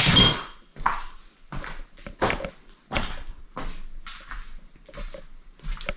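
Footsteps walking across a floor, about one and a half steps a second, with a louder sharp scrape or crunch right at the start.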